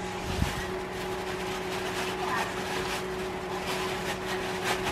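Steady low electrical hum throughout, with a single low thump about half a second in and light rustling of tissue paper being pushed into a paper gift bag.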